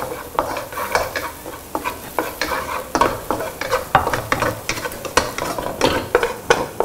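Wooden spatula stirring and scraping crumbly mock crab roe around a wok, in quick, irregular strokes several times a second, over light sizzling from the hot oil.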